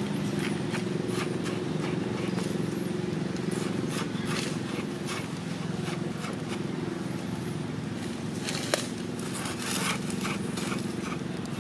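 Dry leaves rustling and crackling in short bursts as a macaque shifts and walks over them, with one sharp snap about three-quarters of the way through, over a steady low engine-like hum.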